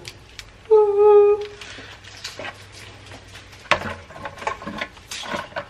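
King crab legs being pulled apart by hand over a metal pot, the shell cracking and clicking in irregular snaps in the second half. About a second in, a short steady-pitched hum-like vocal sound lasting under a second is the loudest thing.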